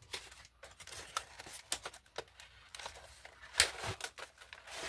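Cardboard box of colored pencils being opened and its clear plastic tray slid out: irregular scrapes, taps and crinkles of cardboard and plastic, loudest about three and a half seconds in.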